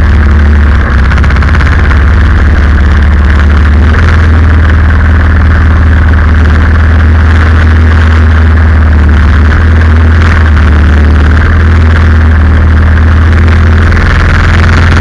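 Predator 212cc single-cylinder four-stroke engine, mounted inboard in a canoe, running steadily and loudly with a deep hum.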